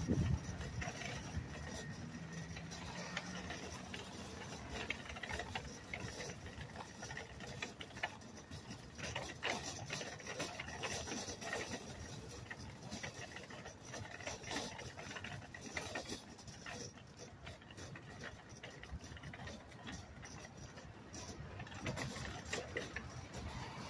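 Road traffic passing, with irregular scuffs and clicks from footsteps and handling of the camera while walking.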